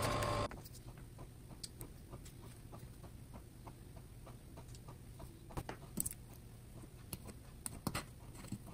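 Small irregular clicks and taps of hand work on electronic parts: pliers bending resistor leads and resistors being pushed into a circuit board. A few sharper clicks stand out. A louder whirring noise with a steady tone stops about half a second in.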